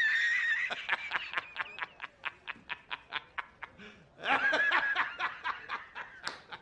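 A man laughing hard: a drawn-out high start, then quick cackles at about five a second that fade away, and a second burst of laughter about four seconds in.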